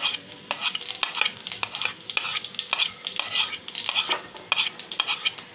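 Cumin seeds spluttering in hot oil in a kadhai on a high flame: a steady sizzle dotted with many sharp crackling pops. This is the sign that the oil is hot enough and the jeera tadka is ready for the garlic.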